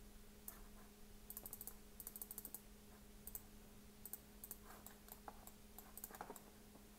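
Faint clicking of a computer mouse and keys, some of it in quick runs of several clicks, over a faint steady low hum.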